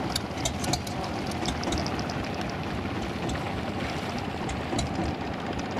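Engine of a narrow wooden motorboat running steadily under way, under a continuous rushing noise, with a few short ticks in the first second.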